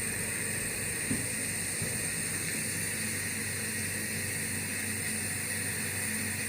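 Nebulizer compressor running steadily: a motor hum under a continuous hiss of air.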